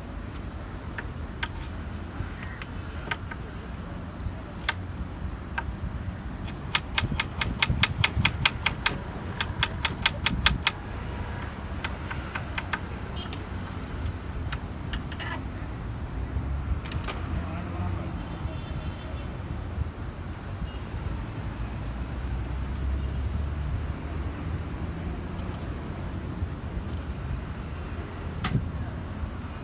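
Busy outdoor street-food ambience: a steady low rumble of traffic and background voices. From about seven to eleven seconds in there is a loud burst of rapid, even clacking, about six or seven strikes a second.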